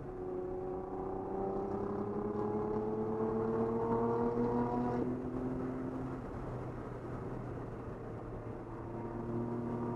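Nissan 300ZX Z32's twin-turbo 3.0-litre V6 heard inside the cabin, accelerating hard with its pitch rising steadily for about five seconds, then breaking off suddenly and climbing again near the end, over a steady low road hum.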